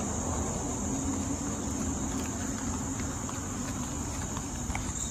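Crickets chirring in a steady high-pitched chorus, with faint footsteps on pavement and a low rumble beneath.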